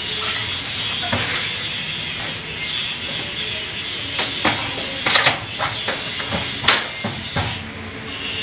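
PVC ceiling panels knocking and clicking against the metal ceiling frame as they are pushed up and slotted into place, with a few sharp knocks in the second half over a steady hiss.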